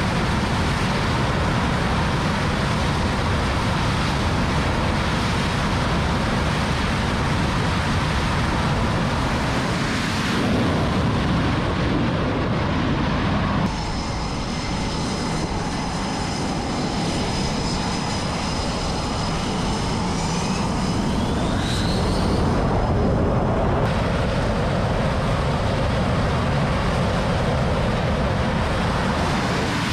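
F/A-18 Super Hornet jet engines running at high power, a loud steady roar. About halfway through the sound changes abruptly and thin high whines come in. A rising whine follows a little later.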